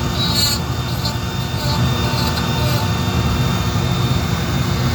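A power tool running steadily while texturing wood, with a brief scratchy burst about half a second in as it cuts.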